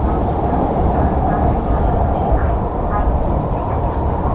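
CRRC Qingdao Sifang EMU 'Q Train' running between stations: a steady rumble of wheels and running gear on the track.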